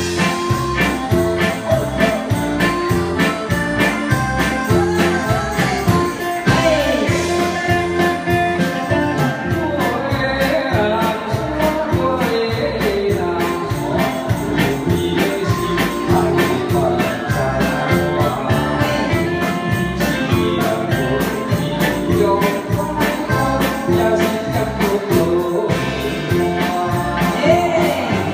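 Live band with guitar, keyboard and drum kit playing a song with a steady beat, with a singer's voice through the microphones over it.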